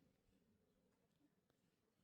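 Near silence: faint background hiss, with two faint ticks about a second and a second and a half in.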